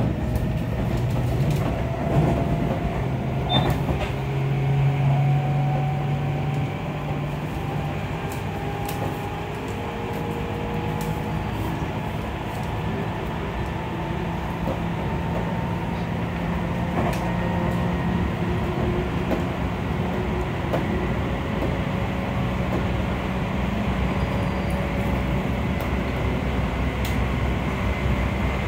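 Hitachi IGBT-VVVF inverter and traction motors of a Seibu 20000-series train, heard from inside motor car MoHa 20208 while running: a whine that slowly rises in pitch as the train gathers speed, over steady wheel-on-rail noise. A few short clicks come in the first few seconds.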